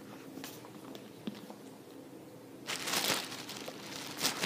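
Paperback comic books being handled and swapped: soft rustling and sliding of paper covers, with a louder rustle about three seconds in and a sharp tap near the end.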